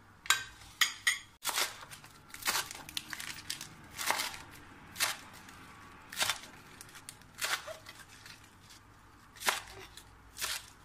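Crisp salad ingredients being prepared by hand: a series of sharp, crunchy snips, irregularly about one a second, with a quick run of three near the start.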